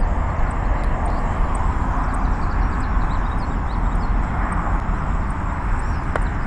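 Steady rumbling outdoor background noise with no distinct events, and a single faint click near the end.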